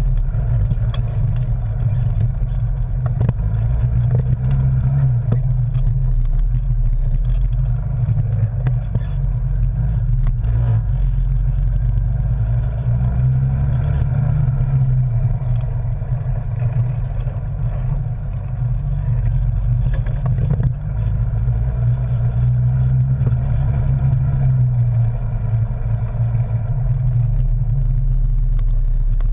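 Arctic Cat Wildcat Sport side-by-side engine running steadily as it drives over a rough, rutted trail, heard from inside the cab, with a few brief knocks and rattles from the bumps.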